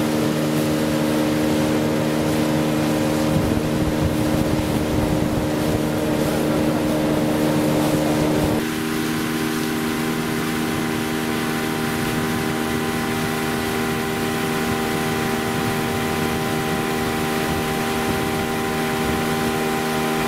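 Yamaha 9.9 GMHS two-stroke outboard motor running steadily at constant speed, its tone changing slightly a little before halfway through.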